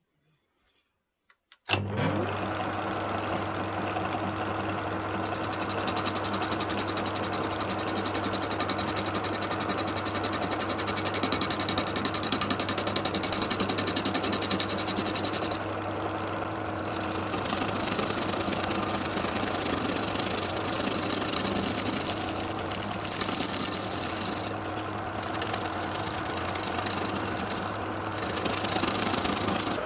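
Wood lathe motor switching on about two seconds in and running with a steady hum, while a hand-held turning tool roughs down a spinning bark-covered log: a continuous rough cutting noise over the hum, with a few short breaks.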